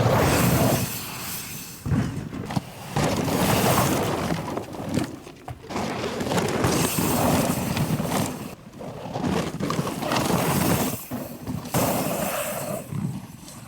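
Mountain bike ridden hard, tyres tearing over rough ground with rattling, clattering impacts from the frame and chain, in surges with short lulls between.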